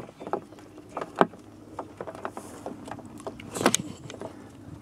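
Small splashes and scrabbling at a muddy pond edge as European pond turtles are set down and make for the water: irregular soft clicks and knocks, with a louder splashy crackle about three and a half seconds in.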